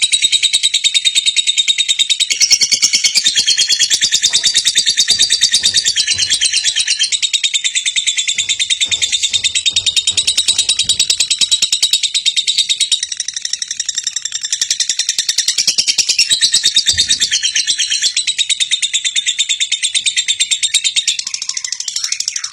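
Lovebird singing in a long, unbroken, very fast chattering trill, high-pitched and loud.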